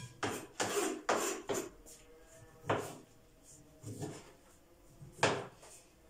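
Hands pulling the white pith off a peeled orange over a plastic cutting board, then a knife cutting into it: short rubbing, scraping strokes, about four in the first two seconds, then single ones about every second and a quarter, the last and loudest about five seconds in.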